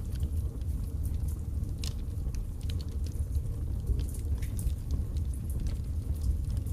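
Birch logs burning in a fireplace: scattered sharp crackles and pops over a steady low rumble of the flames, with one stronger pop about two seconds in.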